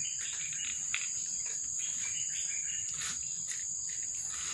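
Insects droning steadily at one high pitch, with short scattered chirps over it.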